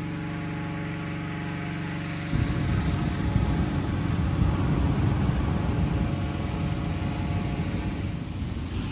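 A small engine runs steadily. About two seconds in, a hot-air balloon's propane burner fires with a loud rushing blast that lasts around six seconds and then eases off.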